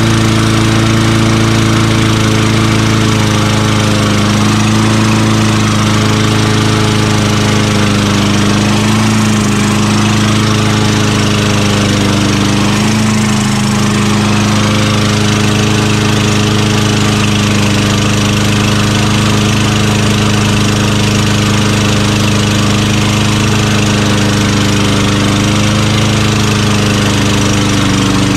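Craftsman rear-wheel-drive self-propelled lawn mower's 6.5 HP Tecumseh engine running steadily at one speed, with slight wavers in pitch now and then.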